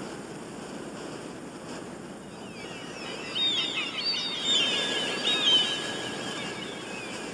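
Outdoor field-recording ambience: a steady noise bed with a flurry of quick bird chirps and twitters from about two and a half seconds in to about six seconds, and a faint steady high tone joining in partway through.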